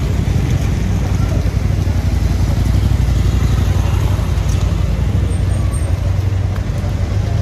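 City street traffic on wet roads: motorcycles and cars passing close by, a steady low rumble of engines and tyres, with people's voices in the background.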